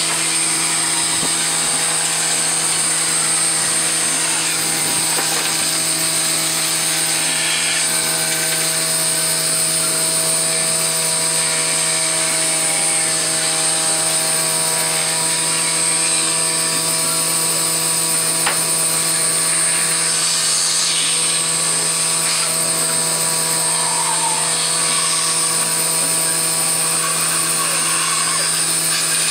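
Band saw running with a steady motor hum, its blade cutting through a thick block of wood.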